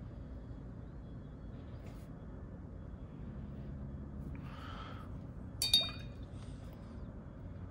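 A paintbrush being set down, clinking once against a hard container: a single short, bright clink with a brief ring, over a low steady room hum.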